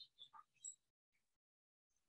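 Near silence: faint room tone, with a few brief faint high chirps in the first second.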